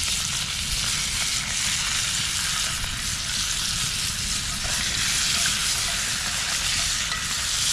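Cajun-seasoned trout fillets frying in butter in a hot skillet, a steady sizzle as the fish blackens.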